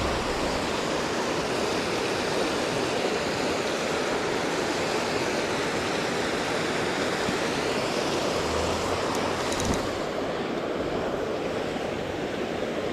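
Steady rush of water spilling below a dam, an even unbroken noise throughout.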